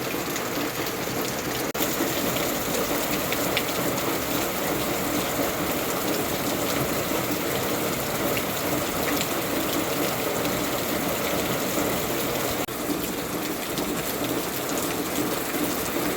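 Steady rain falling, an even hiss with scattered faint drop ticks. The sound briefly drops out twice, about two seconds in and near the end.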